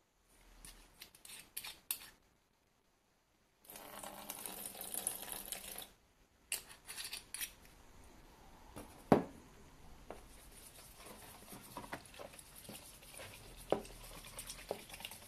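Plastic bottle cap clicking open, then cleaning liquid poured from the bottle into a plastic tub for about two seconds. After a few plastic clicks of the bottle and cap, a hand swishes the water in the tub, working up a soapy lather, as a low continuous hiss.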